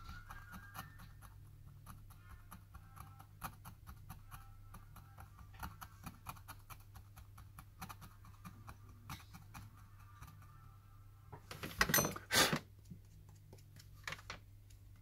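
Light clicks and taps from a smartphone and small tools being handled, with a louder cluster of clicks about twelve seconds in.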